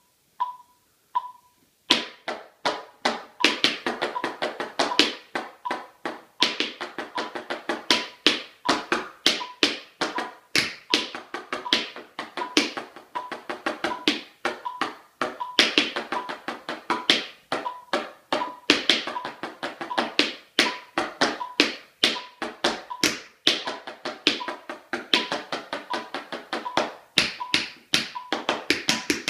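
Tap shoes striking a wooden floor in quick, dense rhythms of taps that start about two seconds in, over an electronic metronome beeping steadily at 80 beats per minute.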